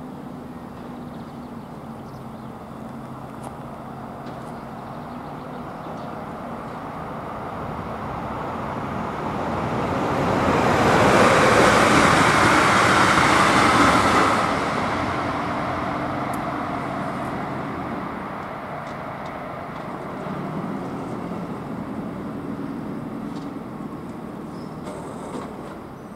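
A blue-and-white České dráhy multiple-unit train passing over a level crossing: its noise builds over several seconds, is loudest for about four seconds in the middle, then fades away. Behind it the crossing's AŽD ZV-02 electronic warning bell rings steadily, and falls silent near the end as the barriers rise and the warning ends.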